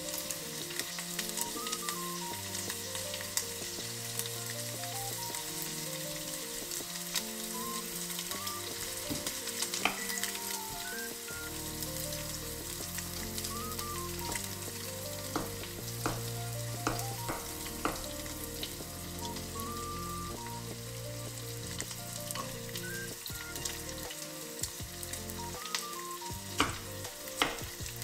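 Pork belly frying in a small pan, a steady sizzle throughout. A kitchen knife chops daikon on a wooden cutting board, in scattered strokes in the second half.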